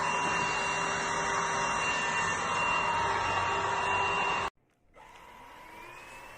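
Dibea H008 cordless stick vacuum cleaner running with a steady whirring whine. It cuts off abruptly about four and a half seconds in. It then starts again much more quietly, its whine rising in pitch as the motor spins up.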